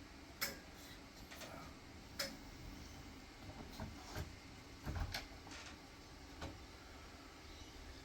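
Irregular clicks and knocks of a front door's handle and latch being worked, a few single strikes with a small cluster about five seconds in.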